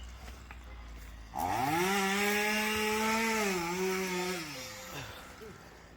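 Chainsaw engine idling, then revved up about a second and a half in, held at high speed for about three seconds and let back down near the end.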